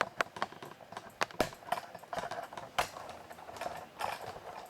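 Irregular clicks and knocks of a camera being handled as it is taken off its tripod mount, with two sharper clicks louder than the rest, about a second and a half in and near three seconds.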